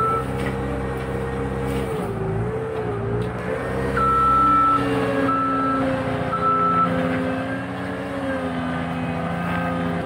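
Diesel engine of a Caterpillar skid-steer loader running, its revs dipping and rising. A reversing alarm beeps three times about four to seven seconds in.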